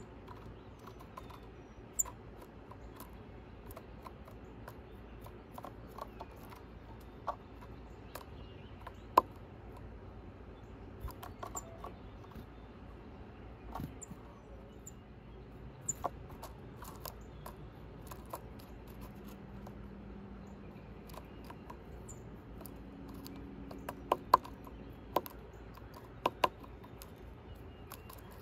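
Sharp taps and clicks, scattered at first, then a quick cluster near the end: a tufted titmouse landing on a wooden rail and pecking at an in-shell peanut.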